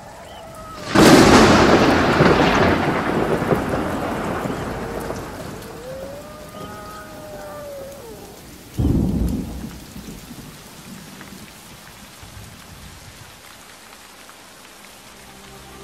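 Thunder over steady rain: a loud crack about a second in that rolls away over several seconds, then a second, shorter crash about nine seconds in.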